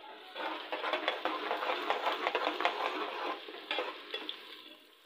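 A metal ladle stirring sliced onions and garlic frying in oil in a metal pot, with quick scraping clicks against the pot over a sizzle. The stirring eases off after about three seconds, with a few more taps after that.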